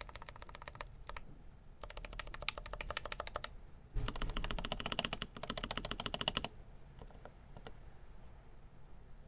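Typing on a GMMK Pro mechanical keyboard with lubed Huano Holy Tom tactile switches, keys clacking in fast runs. The loudest run comes about halfway through, and a few single keystrokes follow before the typing stops.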